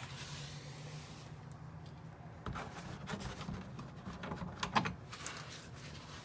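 Faint scattered clicks and scrapes of a 10 mm socket wrench working out the screws of a plastic engine undercover, over a steady low hum.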